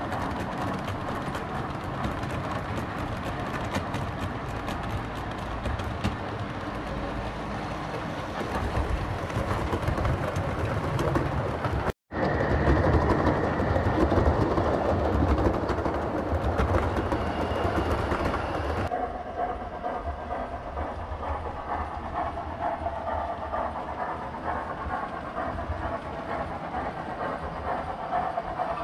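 7mm-scale model trains running on the layout: continuous rumble of the model stock's wheels on the rails as a loaded coal train and a rake of passenger coaches pass. The sound breaks off abruptly about twelve seconds in and returns louder while the coaches pass close. It turns quieter and changes about two-thirds of the way through.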